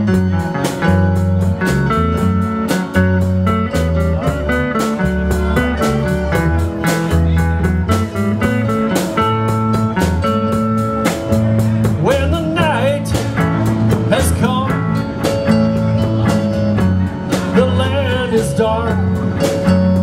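Live blues band playing: electric guitar and bass guitar over a steady beat. A bending lead melody comes in about twelve seconds in and again near the end.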